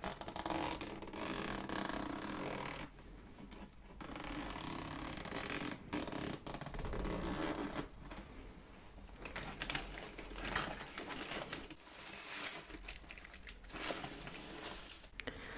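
Close-miked rustling and scraping of packaging being handled, in uneven bursts a second or two long with brief pauses between them.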